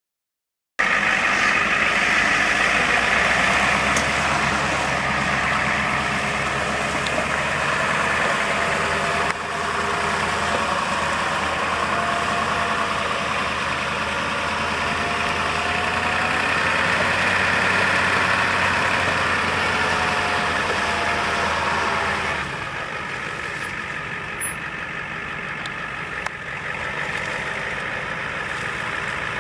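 1992 Ford F450's 7.3-litre V8 diesel engine running steadily as the cab-and-chassis truck drives; the sound gets somewhat quieter about three quarters of the way through.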